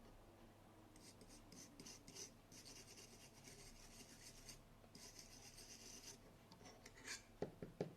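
Faint scrubbing on the camcorder's circuit board during cleaning, in scratchy strokes of a second or two, followed by a few light clicks near the end.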